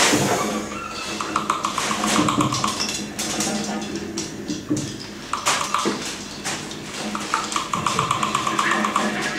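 Free-improvised ensemble music: scattered taps, knocks and clicks, with a fast-fluttering tone that comes in briefly twice, about a second in and again near the end.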